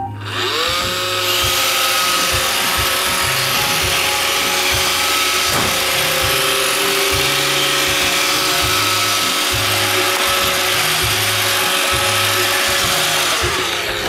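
iRobot Roomba 570 robot vacuum running: its motors spin up with a rising whine about half a second in, then run steadily with a whine over the hiss of the vacuum. The whine falls away as the motors wind down near the end.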